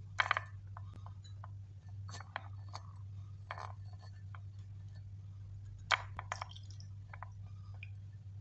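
Wet herb pulp soaked in water being squeezed out by hand, the juice splashing and dripping into a glass in a few short bursts, with light clinks of glass. A steady low hum runs underneath.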